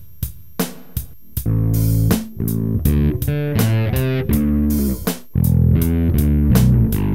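Warwick RockBass Streamer electric bass, strung with boiled strings, played solo: a few short, clipped plucked notes, then a run of sustained bass notes changing pitch several times a second, with a brief break about five seconds in.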